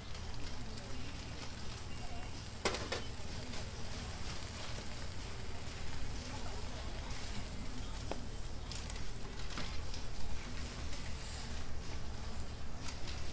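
Beaten egg in square metal molds and raw bacon strips sizzling on a flat-top griddle, with a few sharp clicks and taps as food and a spatula are set down on the metal. A steady low hum runs underneath.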